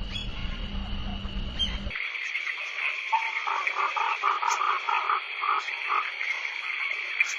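Night jungle ambience: a steady, high insect chorus with frogs calling in quick repeated notes. A low rumble underneath cuts off suddenly about two seconds in.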